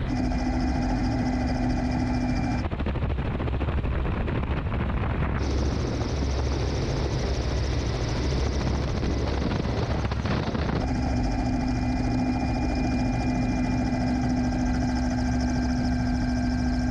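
Kamov Ka-32 coaxial-rotor helicopter in flight, heard close up from beneath the fuselage: a steady rotor chop with a pitched turbine whine. The sound changes abruptly about 3, 5½ and 11 seconds in, where the whine drops out and comes back.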